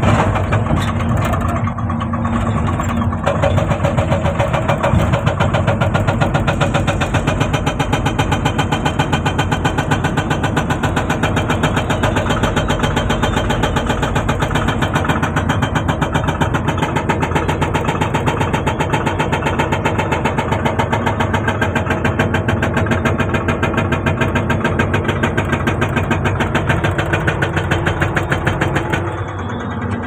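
Excavator-mounted hydraulic breaker hammering rock with rapid, even blows over the excavator's engine running. The hammering stops about a second before the end, leaving the engine.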